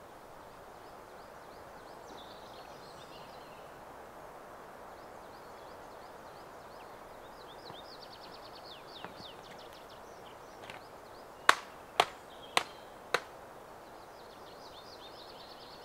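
Steady rush of a rain-swollen river, with small birds chirping and trilling high above it. About eleven seconds in, four sharp clicks or knocks come roughly half a second apart; they are the loudest sounds.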